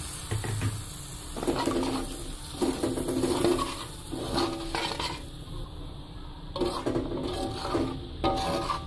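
Metal spatula scraping and clinking against a metal pan in repeated strokes, stirring water into fried chili-and-shallot spice paste, with a light sizzle underneath.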